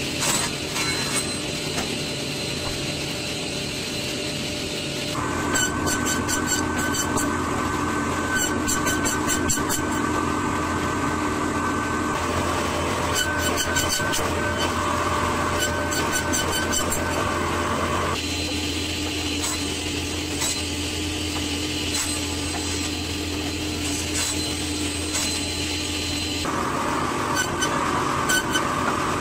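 Sliding-table panel saw running steadily with a constant hum and whine while pine beams are crosscut to length. The sound changes every several seconds as the blade goes in and out of the wood.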